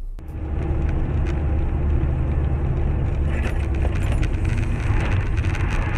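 Steady engine and road rumble inside a moving car's cabin, picked up by a dashcam, with light clicks and rattles. A hiss, typical of tyres on a wet or slushy road, grows louder about three seconds in.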